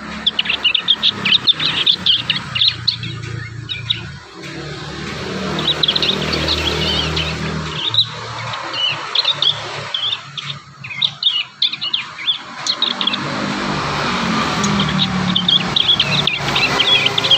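Young prinias (prenjak) practising their song: clusters of quick, high twittering chirps with short pauses between them. A steady low hum runs underneath.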